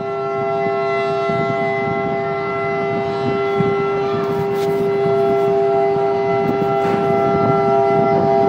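Pakistan Railways RGE 20 diesel locomotive's horn (whistle) sounding one long, steady chord of several pitches, over the low rumble of the train, heard from a coach of the train it hauls.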